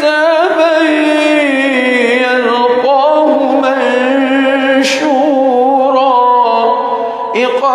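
A man's solo voice reciting the Quran in a slow, melodic chant, holding long ornamented notes that waver in pitch. There is a short hiss about five seconds in and a brief pause for breath near the end.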